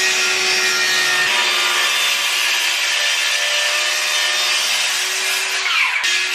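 Circular saw plunge-cutting through half-inch plywood: a steady loud motor whine with the rasp of the blade in the wood, the pitch falling as the saw winds down near the end.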